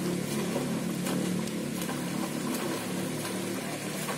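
A steady low mechanical hum, with a few faint light ticks over it.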